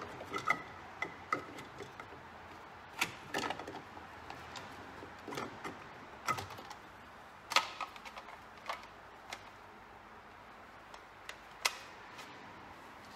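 Irregular clicks and knocks of plastic and metal helm parts being handled and pushed into place while a tilt piece and cover are fitted to a SeaStar hydraulic steering helm, with a handful of sharper clacks among lighter taps.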